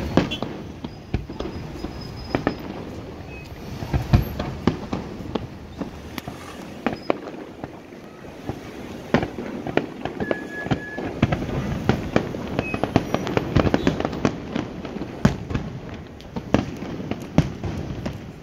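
Fireworks going off: a quick run of bangs and crackles, coming thick and fast in the second half.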